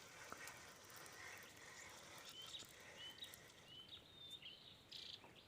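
Faint outdoor ambience with a bird calling: a run of short, high, upward-slurred chirps repeating from about two seconds in, with one louder call near the end.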